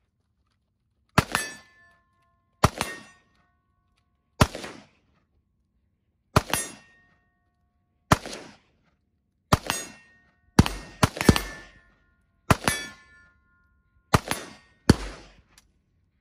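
Budget AR-15 rifle firing eleven single shots, paced one to two seconds apart with two quick doubles near the end. Most shots are followed by a short metallic ring from a steel target being hit.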